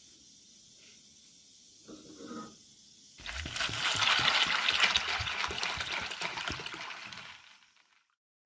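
Water poured from a glass bottle onto dried chickpeas in a bowl: a steady gushing pour that starts about three seconds in and tapers off near the end.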